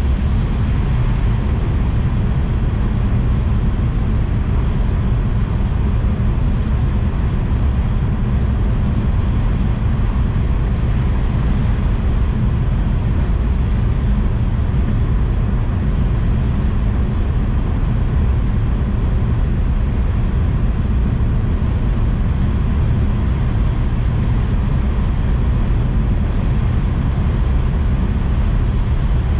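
Tohoku Shinkansen train running at high speed, heard from inside the passenger cabin: a steady, heavy low rumble with a rushing hiss over it, unchanging throughout.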